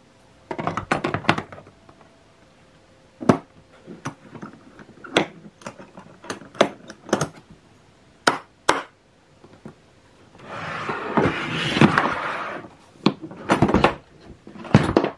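DeWalt hard plastic drill case being handled: a plastic bit box set down inside with a clatter, then a series of sharp plastic clicks and knocks as the lid is shut and its latches fastened. About two-thirds of the way through there is a scraping slide of about two seconds, then more clicks.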